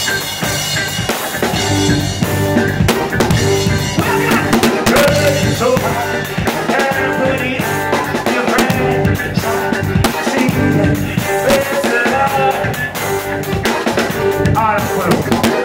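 Live band music played through a concert PA, with the drum kit right by the microphone loudest: a steady beat of kick, snare and cymbal hits over bass and keyboard lines.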